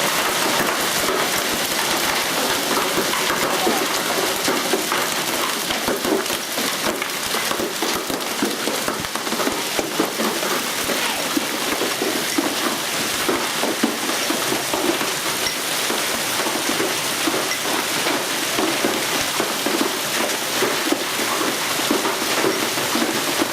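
Hail and rain pelting down steadily: a dense, unbroken clatter of countless small impacts.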